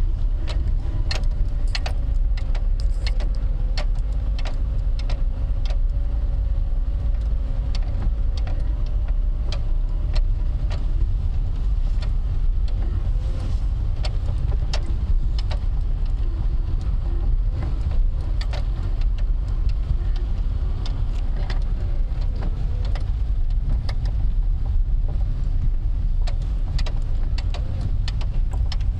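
Cabin noise of a Lada Kalina estate driving slowly: a steady low rumble of engine and road, with frequent small clicks and rattles. A faint steady whine is heard through roughly the first third.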